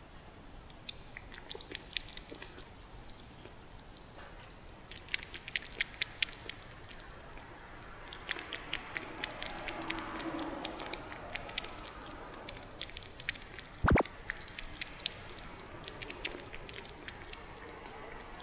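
A young kitten lapping milk from a shallow bowl: runs of quick, small wet clicks and smacks, with one sharp knock about fourteen seconds in.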